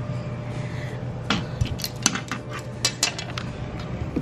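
A quick run of about ten light clicks and clinks of small hard objects over roughly two seconds, starting about a second in, over a steady low hum.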